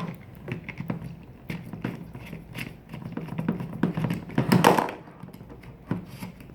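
Light plastic clicks and taps as a toy screwdriver turns the screws holding the track of a take-apart toy excavator. There is one louder, brief rustle about four and a half seconds in.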